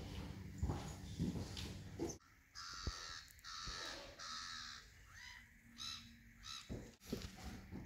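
Birds calling: three or four harsh, raspy caws in a row, followed by a few shorter calls. Before them comes a low rumble that cuts off abruptly about two seconds in.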